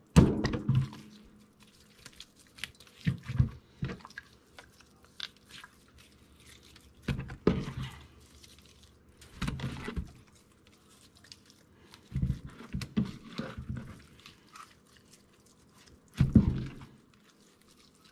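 Hands rubbing salt into raw, scored whole moi and turning them over on a cutting board. Six or so irregular bursts of wet handling and crunching, with short quiet gaps between them.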